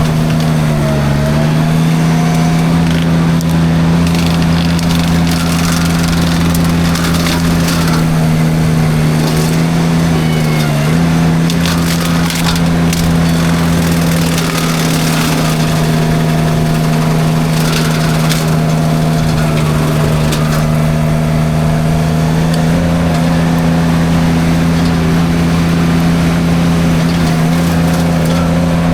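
Derette V1000 mini skid steer with a forestry drum mulcher, engine running steadily at high speed while the mulcher chews through brush, with repeated bursts of cracking and splintering wood. The engine pitch dips briefly as it takes load, about a second in and again about ten seconds in.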